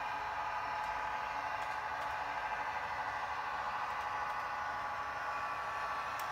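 Model train running along the track, its small electric motor and gearing whining steadily with a faint running rumble.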